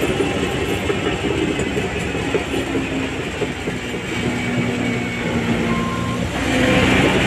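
Shantui DH17C3 crawler bulldozer working, its diesel engine running with a continuous rattle of machinery and tracks. It grows louder near the end.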